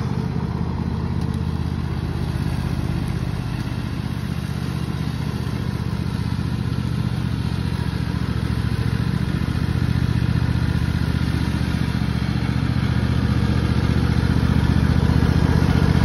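Cub Cadet riding lawn mower's engine running steadily while mowing, growing louder over the last few seconds as the mower comes closer.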